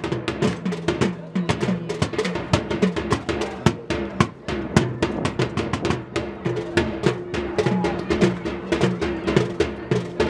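Music with a fast, busy drum beat of snare and bass drum over steady sustained notes.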